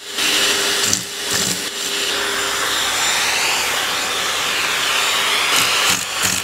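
Vacuum cleaner running steadily: a loud, even rush of air drawn through its hose nozzle, with a faint hum under it in the first couple of seconds.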